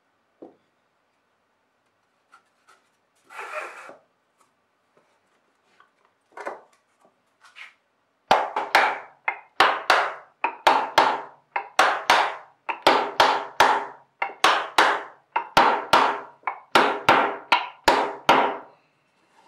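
Wooden mallet knocking a glued dovetailed drawer's joints closed: a few light taps and a short scrape, then about twenty firm blows at roughly two a second, each ringing briefly through the wooden box.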